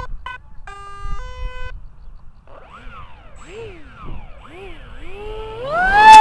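Pylon-racer RC plane's 2836 2850 kV brushless motor with a 6x5 APC propeller: a short run of stepped electronic start-up beeps, then the motor revved up and down in quick throttle blips, then rising steeply to a steady high-pitched full-throttle whine with a sharp rush of noise at its loudest near the end.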